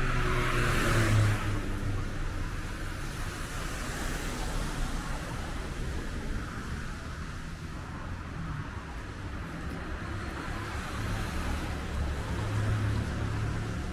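Street traffic on a wet road: cars running past with tyre hiss and engine rumble, one passing close about a second in and another swelling near the end.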